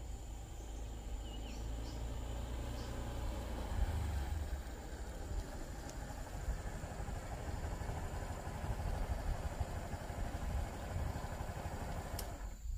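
A motorbike running steadily on the move: a low engine drone with road noise that cuts off suddenly just before the end.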